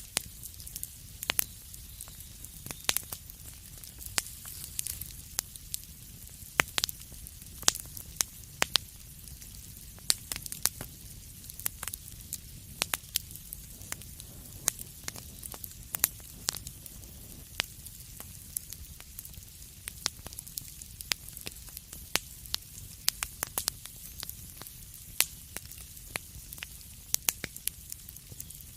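Wood fire burning in a fireplace: a steady low rumble and hiss with irregular sharp crackles and pops, several a second, some much louder than the rest.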